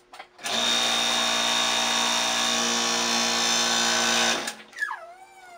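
Electric hydraulic press pump running steadily for about four seconds as the ram presses an embossed metal piece flat, then shutting off abruptly. A cat meows near the end.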